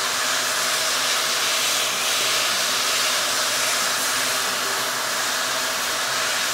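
Digital heat gun with a 9 mm reducer nozzle running steadily: an even rush of hot air over a faint motor hum. It is heating one spot of a clear plastic horseshoe cuff until the surface melts for welding.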